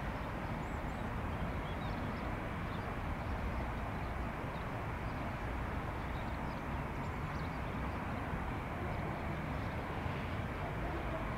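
Steady, even rumble of an Airbus A319's jet engines on distant final approach, with a few faint high chirps over it.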